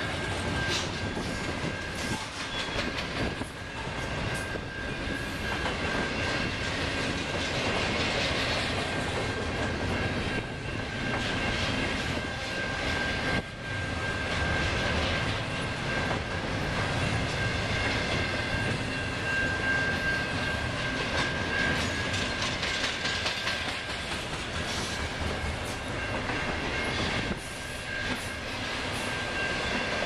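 Intermodal freight train cars rolling past: a steady rumble with wheels clattering over the rail joints, and a steady high-pitched whine running along with it.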